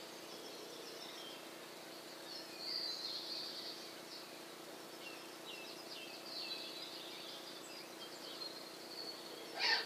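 Small birds chirping and twittering in short repeated phrases over a steady outdoor background hum. A brief sharp sound comes near the end.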